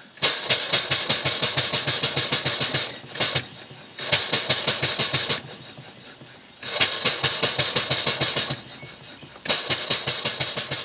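Model beam engine running on compressed air, its rapid exhaust beats cutting out and picking up again about three times. The stops fit the flyball governor, spun by hand, closing and reopening the air valve.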